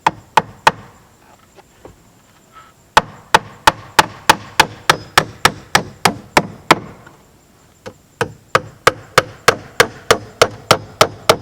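Hammer driving stainless steel ring-shank siding nails into tulip poplar trim: a few strikes at the start, then two long runs of quick, even blows, about four a second, with a short pause between them.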